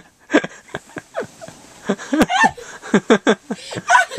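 Dachshund puppy giving a quick series of short yips and whines, several falling in pitch, as he excitedly searches for his owner.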